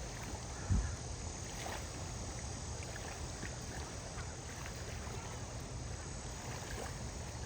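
Outdoor background noise: a steady low rumble, with one dull thump about a second in and faint scattered ticks.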